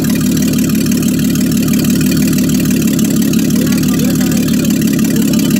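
Mercedes-Benz six-cylinder engine idling steadily, with a deep, even note.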